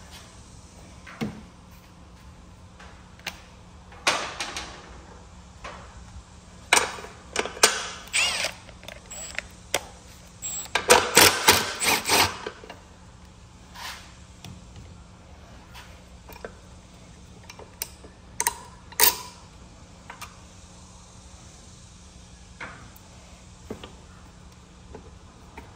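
Milwaukee Fuel cordless impact wrench hammering on a push mower's belt idler bolt, with about a second and a half of rapid impacts near the middle as the loudest sound. Shorter bursts and clanks of tools and metal parts come before and after it.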